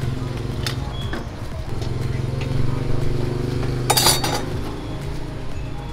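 Ceramic bowls and utensils clinking at a hawker stall as a bowl of noodles is put together, with a few light clicks and one loud, ringing clink about four seconds in. A steady low hum runs underneath.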